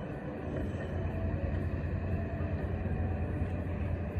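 Steady low outdoor rumble with no distinct event in it.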